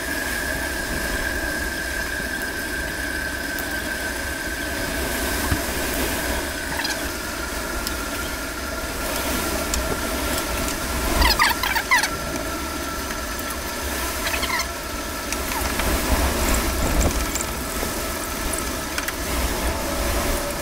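Rubber engine-bay hoses squeaking and rubbing as they are handled, with a short burst of squeaks about eleven seconds in. Under it runs a steady high whine that drops slightly in pitch about seven seconds in.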